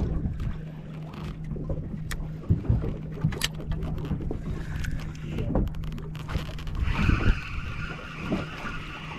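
Steady low drone of a boat engine with scattered knocks from handling the rod and reel. From about seven seconds in, a spinning reel is cranked: a steady whirring.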